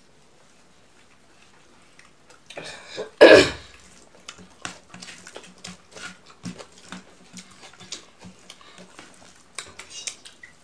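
A single loud cough about three seconds in, then soft wet clicks and squelches of fingers mixing rice and dal against a plate.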